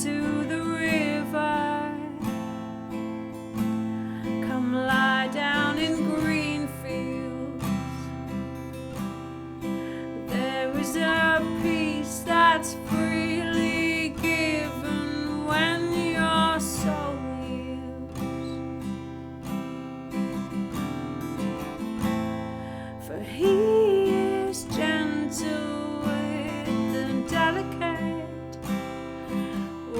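Music: a strummed acoustic guitar playing sustained chords, with a wavering melodic line above it in several passages.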